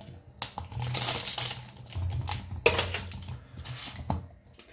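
Adhesive tape being picked and peeled off the rim of a plastic protein-powder tub's lid: irregular crackling and tearing in two main spells.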